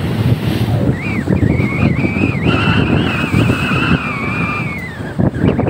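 Wind buffeting the microphone on a boat's bow at sea, with a wavering high-pitched whistle that starts about a second in and briefly drops out near the end.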